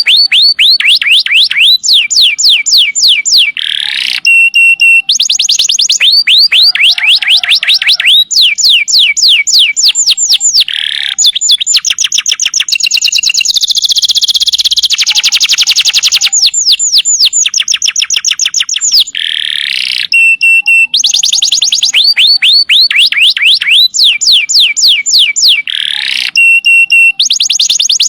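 Canary singing a loud, unbroken song of fast trills, each run of quick repeated sweeps lasting a second or two, broken by short pure whistled notes. A denser, buzzing roll fills the middle of the song.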